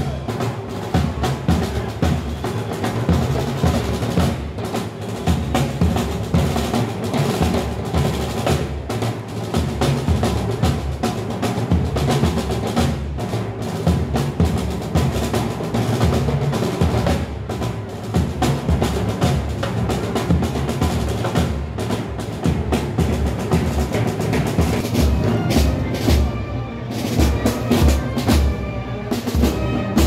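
Music driven by heavy drumming, with dense, rhythmic drum and percussion hits throughout. Pitched instruments come up more clearly near the end.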